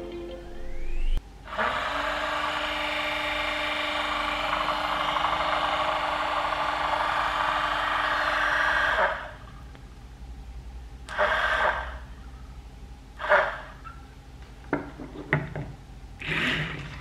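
Homemade DC motor, built from screws and powered by a 12 V lead-acid battery, whirring up to speed with a rising pitch. It runs steadily for about seven seconds and then winds down. Near the end come several short bursts of whirring, each only a fraction of a second long.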